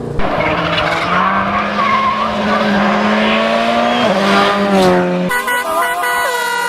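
Rally car engine held at high revs at full throttle, with a dense gravel and tyre noise under it. The pitch drops about four seconds in. A second and a half later the sound cuts abruptly to a chord of several steady horn-like tones.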